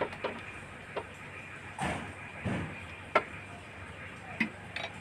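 A few scattered small metallic clicks and taps as engine-mount bolts are handled and threaded in by hand, over a faint steady hum.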